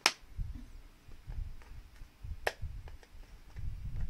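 Hands working plastic toy packaging: a sharp click right at the start and another about two and a half seconds in, with low bumping and rubbing in between.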